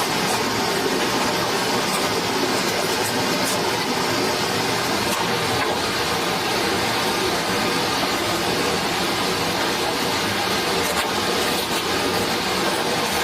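Forest stream rushing and splashing in a steady, loud wash of water noise.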